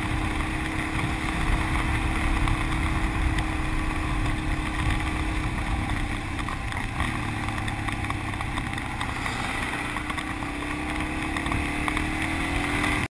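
Motorcycle engine running on the road with heavy wind rush on the microphone. The engine note holds steady, eases off about five seconds in, then rises steadily over the last few seconds as the bike accelerates.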